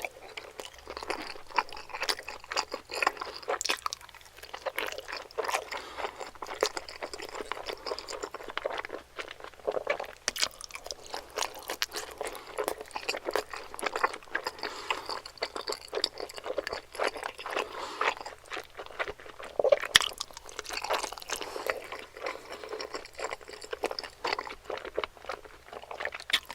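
Close-miked chewing and mouth sounds of people eating momos (dumplings), a steady stream of short clicks and bites.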